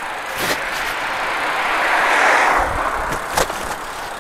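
A car passing close by, its tyre and engine noise swelling to a peak a little past halfway and then fading. Two sharp knocks, one early and one near the end.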